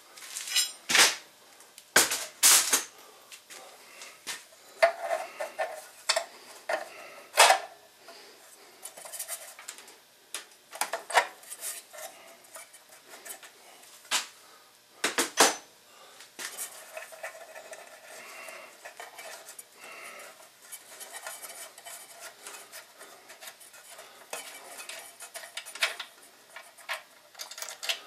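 Metal clinks and clicks from a ratchet socket wrench worked on an engine's spark plug to loosen it, with several sharp clinks in the first half and lighter, quicker ticking later on.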